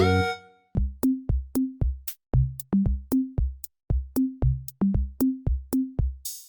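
Background music: a fading chord, then an electronic drum-machine beat with a thudding kick and short bass notes, about two to three hits a second, and a cymbal swell near the end.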